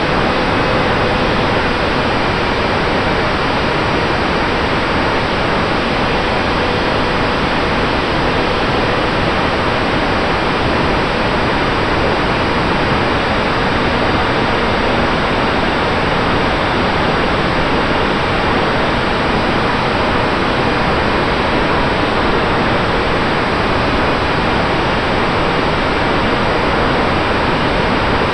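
Steady rush of airflow over the onboard camera's microphone as the small foam Eachine Micro Skysurfer flies, with a faint steady whine from its electric motor and propeller underneath.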